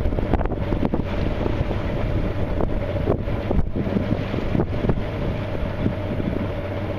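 Wind buffeting the microphone over a boat's engine running steadily.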